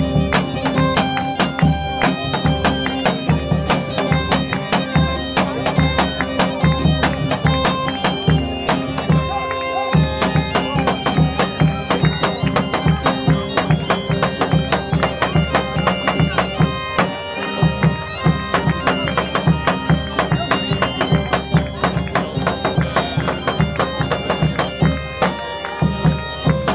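Bagpipes playing a tune over a steady drone, with a drum keeping a regular beat underneath.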